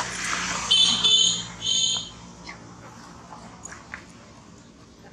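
Baby macaque giving two short, shrill, high-pitched squeals about a second apart, just after a brief rustle at the start.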